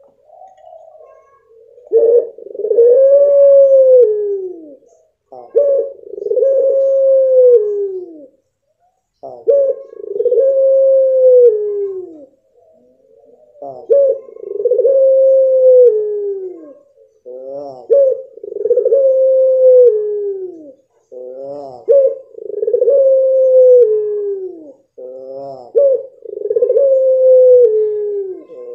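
Puter pelung dove giving its long, drawn-out call seven times, about every four seconds. Each call opens with a short sharp note, then holds a long tone that slides down at the end. From about the middle on, a quick stutter of short notes leads into each call.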